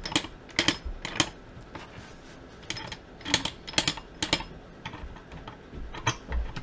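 Sharp metallic clicks and clinks of a Suzuki RM-Z250's transmission gears and shafts being handled and seated in the aluminium crankcase half, in two clusters of several clicks with a pause between, and one more near the end.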